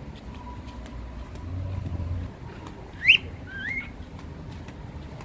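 Cockatiel giving two short rising chirps about three seconds in, the first louder, over the low rumble of a car's cabin.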